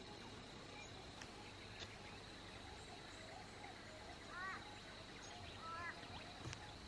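Quiet rural outdoor ambience: a steady high insect drone with a few short bird chirps, two of them about four and a half and six seconds in.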